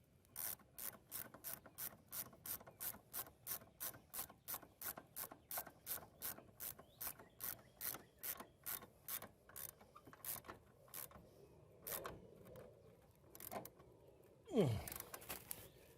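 Ratchet wrench clicking steadily, about three clicks a second for some ten seconds, as it turns the axle bolt nut on a Craftsman T1400 riding mower, followed by a few scattered clicks and a brief falling sound near the end.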